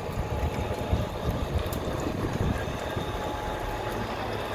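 Die-head rebar threading machine running steadily, its motor giving a low hum under an even wash of noise.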